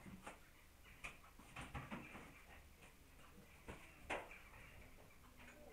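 Near silence with a few faint, scattered light clicks and taps, the clearest about four seconds in.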